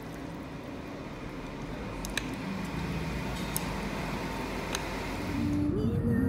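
Steady room noise with three light, sharp clicks of chopsticks against a bowl. Near the end a louder steady rumble and background music come in.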